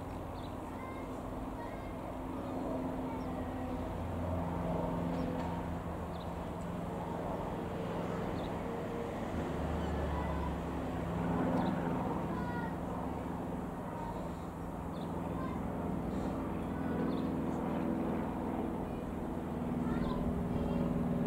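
Single piston-engine light aeroplane droning at a distance, its steady engine note growing louder toward the end as it comes closer.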